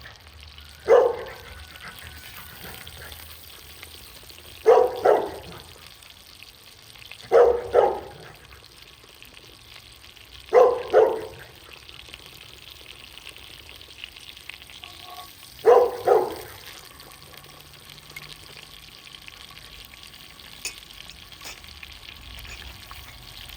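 Steak frying with a steady sizzle. Five loud, short sounds break over it about every three to five seconds, most of them in quick pairs.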